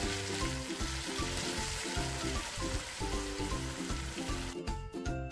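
Bone-in meat pieces sizzling in hot oil and garlic-ginger paste in a pressure cooker, a steady frying hiss that cuts off near the end, with light background music underneath.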